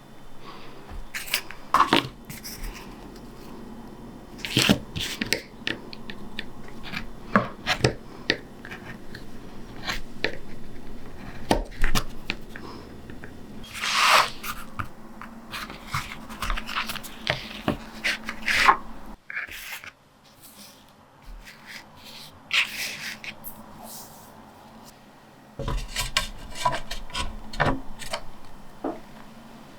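Printmaking supplies being handled and set out on a work table to get ready for inking: scattered taps, clicks and light rubbing, with a quieter stretch about two-thirds of the way through.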